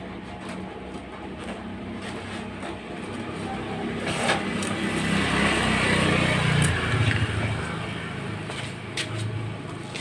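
A motor vehicle passing by: its engine and road noise grow steadily louder, peak a little past the middle, then fade away.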